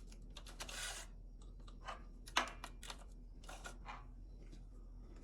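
Light metal clicks and rattles from handling a chainsaw's chain and guide bar while the chain is being fitted and tensioned, with one sharper click about two and a half seconds in.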